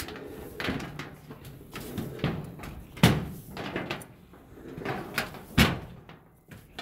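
Work boots stepping up a painted tiled roof: a string of uneven thuds about once a second, two of them louder, about three seconds in and near five and a half seconds.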